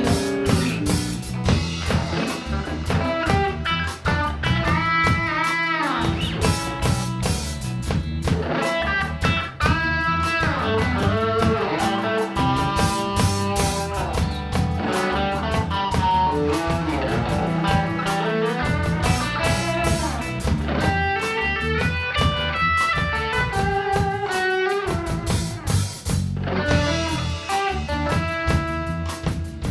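Live music with a lead guitar playing bending single-note lines over bass and a drum kit, in a blues style.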